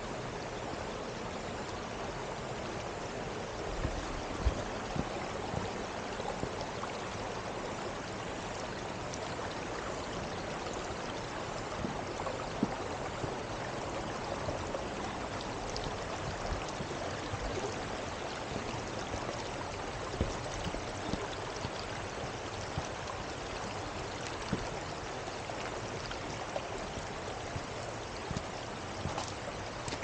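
Shallow mountain stream flowing over rocks, a steady babbling rush, with a few short knocks scattered through it.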